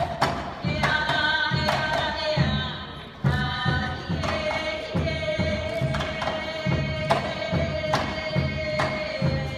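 A group singing a Hawaiian song, one voice holding a long steady note through the middle, over a regular thudding beat about twice a second.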